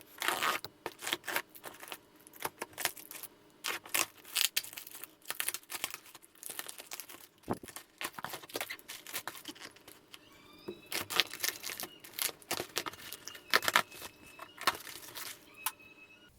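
A cardboard shipping box being opened by hand: packing tape ripped away and paper and plastic packing rustled and crinkled, in a dense run of sharp rips, crackles and clicks.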